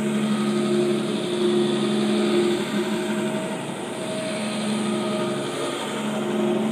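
Pow'r-Flite Multiwash counter-rotating brush carpet scrubber running over pre-sprayed carpet: a steady electric motor hum whose tones swell and fade as the machine is worked across the pile.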